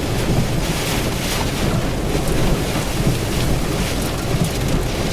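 Violent tornado wind, the rear-flank downdraft close to the tornado, buffeting the microphone in a steady low rumble, with rain and debris spattering throughout.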